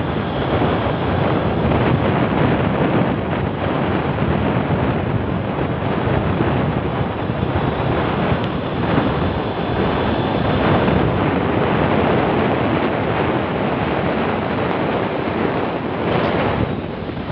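Steady wind rush buffeting the microphone, mixed with road and vehicle noise while moving along the road, dipping briefly near the end.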